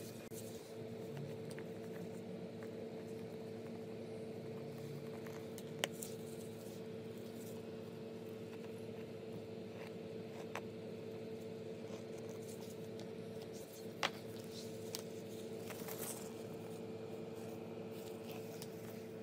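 Wooden rolling pin rolling and scraping over dough on a floured silicone mat, with a few sharp clicks, over a steady hum.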